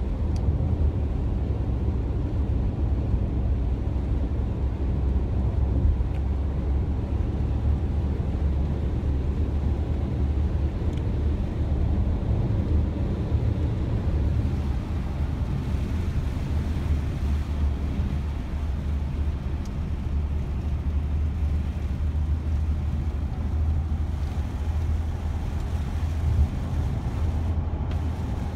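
Steady low road rumble inside the cabin of a 2017 Ford Explorer driving on a wet highway in the rain: tyres on the wet road and engine noise.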